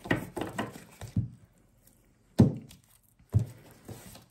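A deck of tarot cards being shuffled by hand, with short riffling and slapping in the first second, then two sharp thuds about a second apart as the deck is knocked down on the table.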